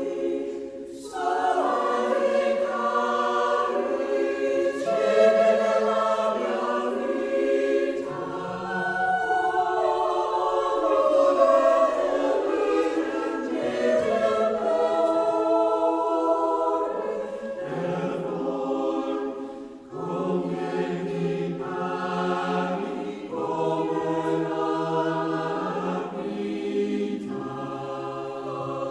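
A choir singing in several parts, holding sustained chords that change every second or two, with a short break in the sound about twenty seconds in.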